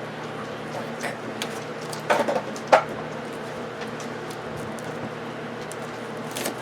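A few short knocks and scrapes from handling a large cardboard TV box, over a steady low hum.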